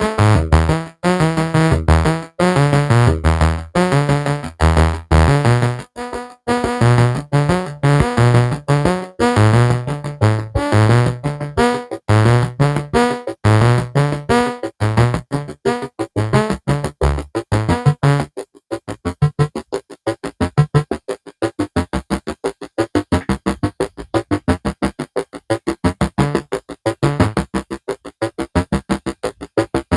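Electronic synthesizer music: a fast run of short, staccato keyboard-like notes over a bass line. About eighteen seconds in the bass drops out and only the quicker, higher notes continue.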